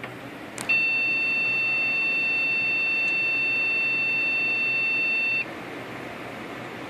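A PC motherboard's POST speaker gives one long, steady, high-pitched beep of about five seconds, just after a click as the computer is switched on. One long beep is this board's memory error code, caused by an incompatible memory module, and the fans whir faintly underneath.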